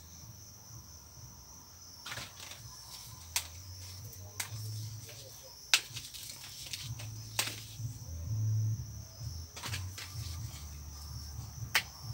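Leaves being snapped and pulled off a freshly cut rose apple (jambo) branch by hand: several short sharp snaps, a second or so apart, with some rustling. Insects chirr steadily behind.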